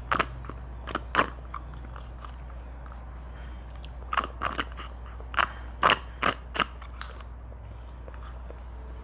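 Close-miked mouth sounds of sipping taho through a straw: short, sharp slurps and smacks in small clusters, once about a second in and several more between four and seven seconds in, over a steady low hum.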